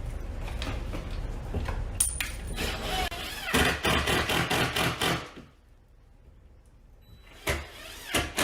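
Fastening a wooden furring strip into a drywall opening: low handling noise and a click, then a quick run of sharp knocks lasting under two seconds.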